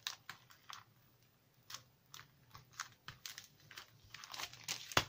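Clear plastic sleeve crackling and crinkling under hands as it is smoothed and its closure pressed shut: irregular short crackles, growing denser and louder near the end.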